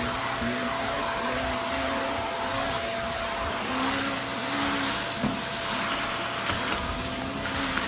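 Vacuum cleaner running steadily with a thin high whine over its rushing noise, sucking up scraped-off sand-wall debris.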